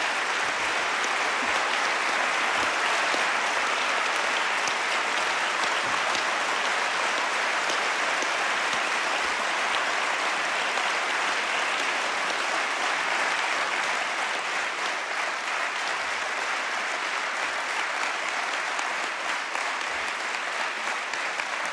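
Large theatre audience applauding, a dense steady clapping that eases off a little in the last third.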